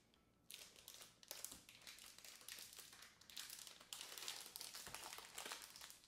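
Faint crinkling and crackling of a dark chocolate bar's packaging and foil wrapper as it is opened and unwrapped, starting about half a second in.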